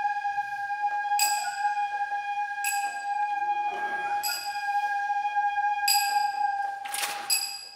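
Shishimai accompaniment: a Japanese transverse bamboo flute holds one long high note. About every one and a half seconds a sharp strike leaves a bright metallic ring. The flute note breaks off near the end.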